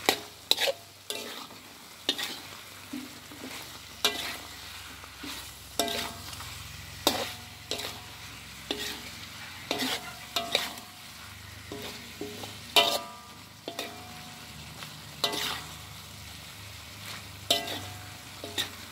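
Spatula scraping and knocking against an aluminium pot while stirring squid pieces in sweet soy sauce, over a steady low sizzle. The strokes come irregularly, about once a second, and some leave a short metallic ring from the pot.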